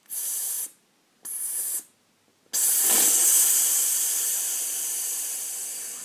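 A person hissing out breath through the teeth in a singer's breath-support exercise: two short sharp "sss" bursts, then one long sustained hiss starting about two and a half seconds in that slowly fades as the breath runs out.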